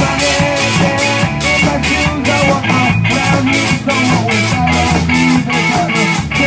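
Live rock band playing: guitars over a steady drum beat, with hits about three a second.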